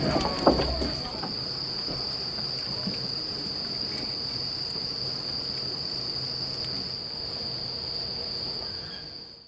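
Crickets trilling in one steady, unbroken high note over a low background hush, with a single knock about half a second in; the sound fades out near the end.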